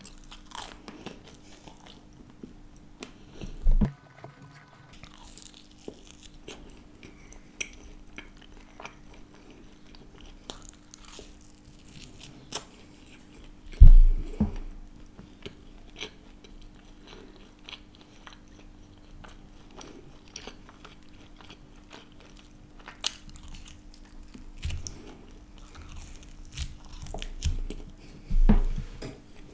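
Close-miked biting and chewing of crisp thin-crust Margherita pizza, with many small crunches throughout. Three louder low thuds stand out, about 4, 14 and 28 seconds in.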